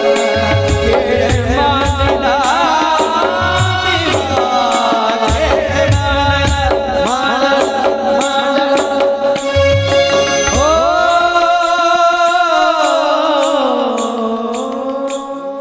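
A man singing a Marathi devotional song in an ornamented, wavering melody over a steady drone, with drum strokes and a steady rhythm of metallic cymbal-like ticks. About two-thirds of the way in the drums drop out and he holds one long note that slides down near the end.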